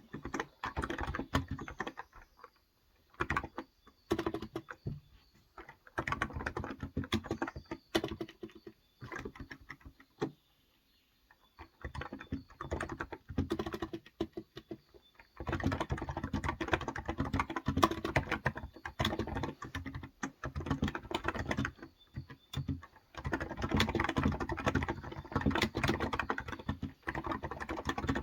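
Typing on a Cox Endeavor tenkeyless keyboard with electro-capacitive (non-contact) 35 g switches: bursts of rapid keystrokes broken by short pauses, with longer unbroken runs of typing in the second half.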